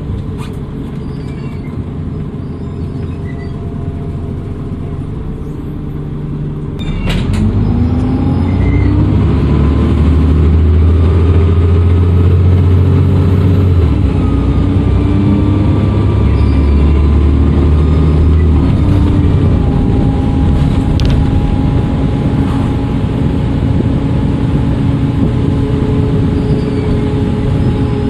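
Dennis Trident II double-decker bus engine running quietly, then, after a few sharp clicks about seven seconds in, pulling away. The engine note and turbo whistle rise in pitch, with a gear change about halfway through. Later it settles into a steady run with a high turbo whistle.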